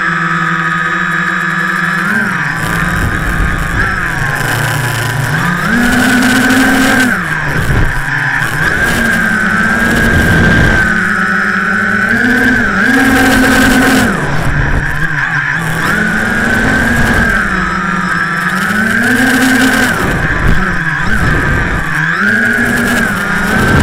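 The four brushless outrunner motors and propellers of a small quadcopter, Turnigy Aerodrive SK3 2826-1130kv, heard close up from the airframe: a steady whine whose pitch swells up and falls back several times as the throttle is pushed and eased off.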